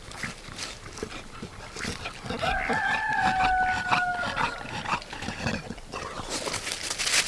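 Pigs grunting as they root about, with one drawn-out animal call about two and a half seconds in that rises, holds for nearly two seconds and falls away, and a short rustling burst near the end.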